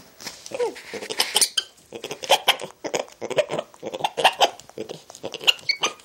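Spider monkey giving a rapid string of short calls close to the microphone, mixed with clicks and handling noise as it grabs at the hand and phone.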